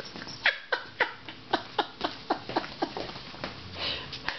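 Quick, irregular clicks and taps, about four or five a second, as an Airedale puppy scrabbles on a tile floor while tugging at a string mop. A short rushing sound follows near the end.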